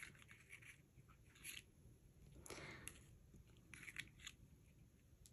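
Faint, scattered rustles and small scratchy sounds of gold eyelash trim being handled and tied into a bow on a paper ornament.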